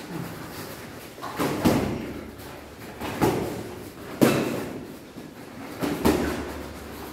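Sparring blows landing on boxing gloves and body: several loud hits at irregular intervals, the sharpest about halfway through, with a light echo from the room.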